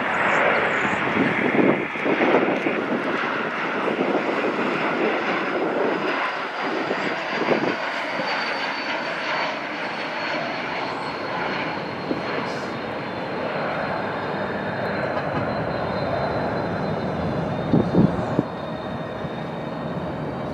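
Jet airliner engines passing close by on approach, a steady rushing jet noise with a high fan whine that slowly falls in pitch. A few brief thumps come near the end.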